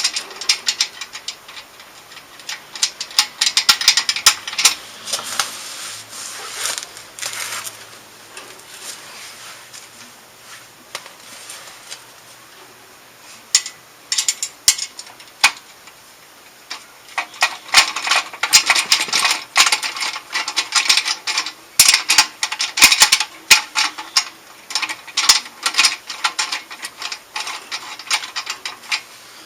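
Hand ratchet wrench clicking in quick runs of strokes on motorcycle muffler mounting bolts. One spell of clicking comes in the first few seconds, then a pause with a few stray clicks, then a longer, louder spell from a little past the middle.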